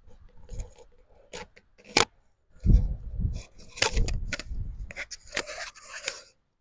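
Irregular rustling and rubbing, with a few sharp clicks and dull knocks, from a body moving through side-lying leg lifts on an exercise mat.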